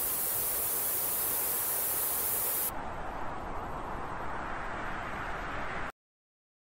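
A steady rushing hiss with no tone in it. About three seconds in it turns duller and a little quieter, and near the end it cuts off abruptly to silence.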